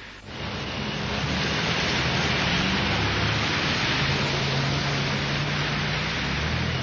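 Rain and traffic on a wet city street: a steady hiss of rain and tyres on wet pavement with a low hum of car engines under it. It starts suddenly about a quarter second in.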